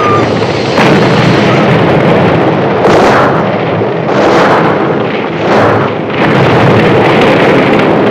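Gasoline explosion: a sudden loud blast about a second in, then a continuous fire-and-explosion rumble with several further blasts swelling up in turn.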